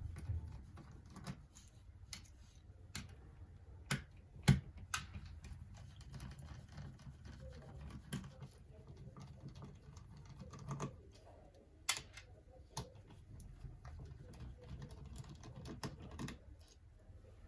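Irregular plastic clicks and taps as an Acer Nitro 5 laptop's case halves are handled and prised apart, with a sharper knock about four and a half seconds in and another near twelve seconds.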